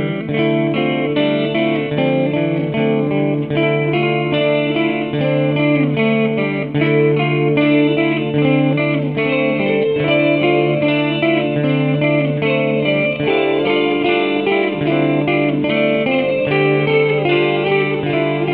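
Instrumental guitar music: quickly plucked notes over a held low note.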